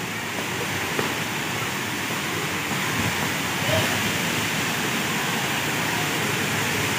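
Waterfall's steady rush of heavy falling water, growing gradually louder.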